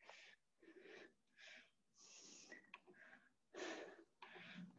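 Faint, quick breathing of a woman catching her breath after hard exercise: a regular run of soft breaths, roughly two a second.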